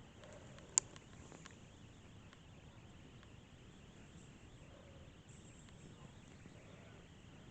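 A malfunctioning camera's own mechanism making odd noises: one sharp click about a second in and a few fainter ticks just after, over a faint steady hiss.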